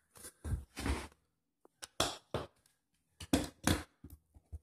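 Plano 42-inch hard plastic rifle case being handled and moved: a run of irregular short plastic knocks and clicks, about a dozen, some in quick pairs.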